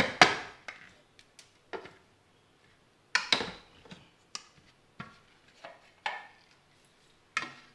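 Knocks and clinks of a Blue Leaf mixer grinder's stainless-steel jar being handled and lifted off its plastic motor base, with about a dozen sharp, separate strikes. The loudest comes right at the start, just as the grinder's motor has stopped.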